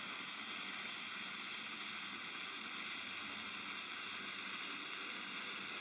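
Hand-held morning glory firework, a sparkler-type stick, burning with a steady, even hiss as it sprays sparks.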